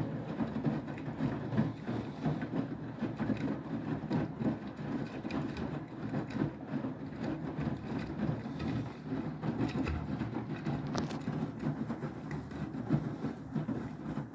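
Beko WTK104121W washing machine running the cool-down stage of a Quick 90 wash, with a continuous, uneven low rumble and a single sharp click about eleven seconds in.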